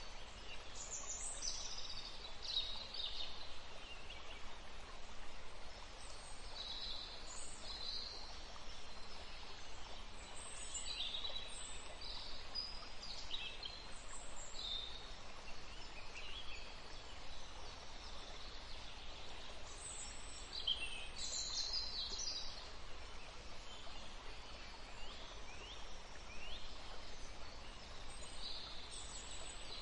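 Woodland ambience: a steady background hiss with small songbirds chirping and calling often, in short high notes that drop in pitch.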